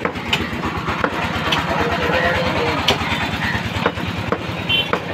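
A small engine idling with a fast, even putter. Over it come several sharp clicks and knocks, about one a second, from a butcher's knife working meat on the stall.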